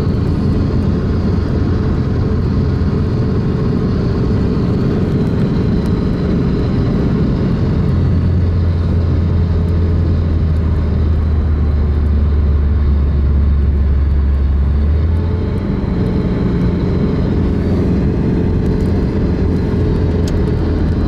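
Steady road and engine noise of a car travelling at highway speed, heard from inside the cabin. A deeper low drone swells about eight seconds in and drops away about fifteen seconds in.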